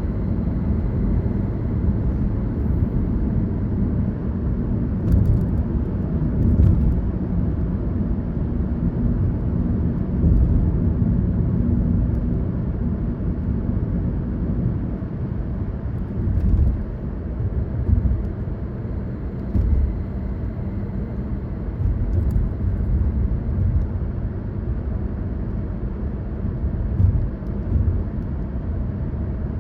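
A car driving along a road, with a steady mix of engine and tyre noise that swells and eases slightly. A few faint clicks or knocks are heard along the way.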